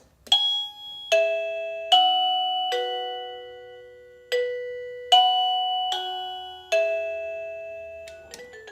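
Wireless doorbell receiver playing an electronic chime tone: eight ringing notes, each fading away, in two groups of four with a short pause between. Near the end a quicker tune of short notes starts as the next of its tones is selected with the musical note button.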